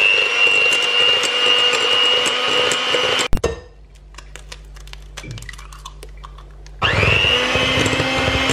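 Electric mixer beating softened butter, sugar and an egg, running at a steady high whine. It switches off with a click about three seconds in, and after a quieter stretch of small clicks and knocks it spins up again near the end.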